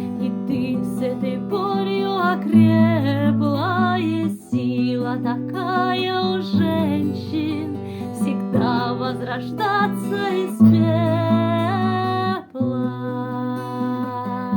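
Song backing music: plucked acoustic guitar with a bass note that changes about every two seconds, under a high wavering melody line.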